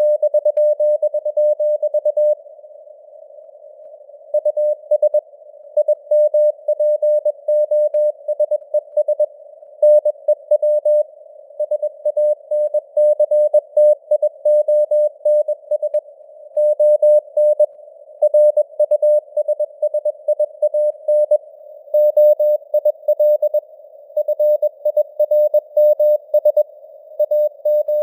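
Morse code (CW) sent at 21 words per minute: a single mid-pitched tone keyed on and off in dots and dashes, over a narrow band of simulated radio hiss. The signal strength rises and falls as simulated fading (QSB). The keying pauses for about two seconds shortly after the start.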